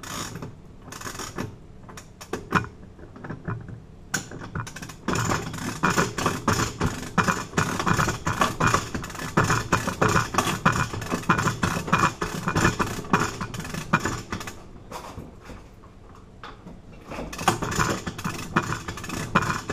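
Rapid metallic clicking and rattling in dense runs, with a quieter stretch about three-quarters of the way through, as bolt cutters are worked against a padlock shackle.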